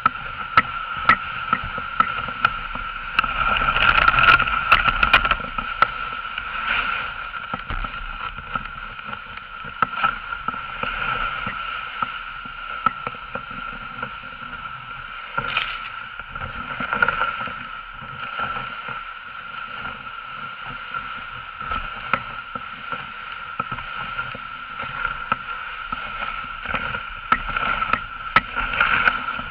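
Dog sled gliding over snow: a steady swishing of the runners with frequent sharp knocks and jolts from the sled, louder for a couple of seconds about three seconds in.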